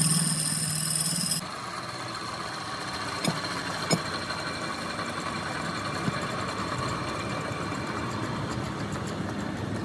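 Workshop woodworking machinery running steadily. Its sound changes abruptly about a second and a half in, and two sharp knocks come a few seconds in.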